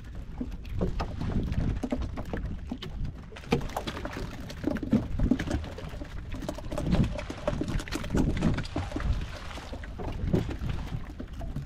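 Sea water slapping and lapping against the hull of a small open fishing boat, with wind rumbling on the microphone and scattered small knocks and taps throughout.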